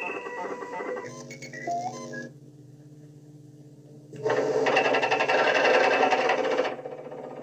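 Science-fiction film sound effects of a spaceship's computer consoles: electronic beeps and tones over a low steady hum. About four seconds in comes a loud, rapid mechanical clattering, like data printing out, lasting a couple of seconds.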